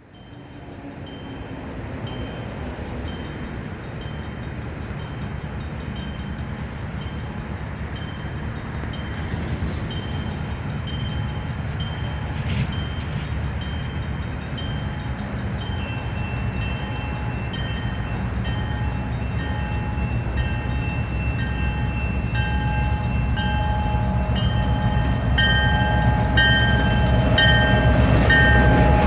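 Diesel locomotives of a CN local freight, led by a GP38-2, running as they approach and growing steadily louder. A bell rings throughout at about one and a half strikes a second, with a second ringing tone joining about halfway through.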